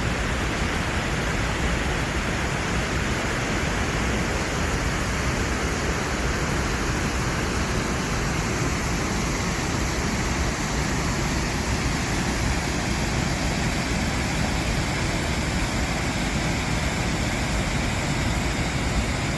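Steady rushing of the Aare's fast-flowing water, an even, unbroken noise.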